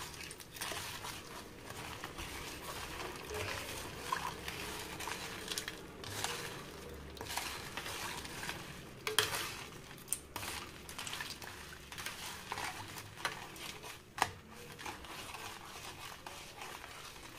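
Steel spoon stirring a thick milk, jaggery and spice mixture in an aluminium pot, scraping continuously against the pot, with a few sharper clinks of spoon on metal. This is the milk being mixed so the jaggery dissolves, before the colostrum pudding (junnu) is steamed.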